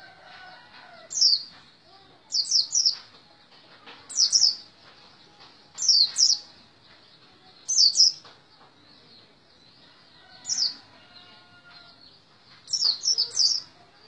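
White-eye (pleci) calling from its cage in short, high, falling chirps, two to four in quick succession. Seven such bursts come roughly every one and a half to two seconds.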